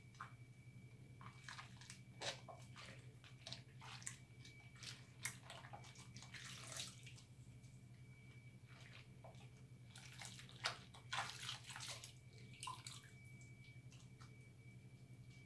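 Soapy hands rubbing and squeezing a lump of recycled soap in a sink of sudsy water: soft wet rubbing and light splashing in irregular bursts, quieter for a few seconds around the middle.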